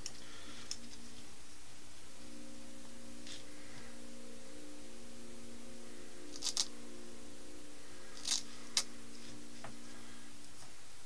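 A few sharp clicks and short scratchy rasps as tape is handled and wrapped around a metal air blow-gun nozzle, over a faint steady hum.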